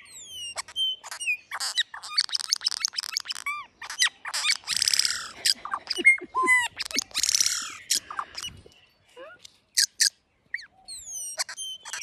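Male Australasian figbird singing very loud, close to the microphone: a fast, varied run of down-slurred whistles, rapid chattering notes and two longer harsh, rasping calls, broken by short pauses.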